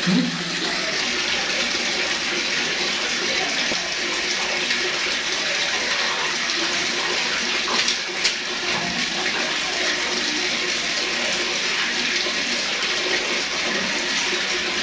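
Water running steadily from a tap into a plastic bucket, a continuous rushing splash, with a couple of short clicks about eight seconds in.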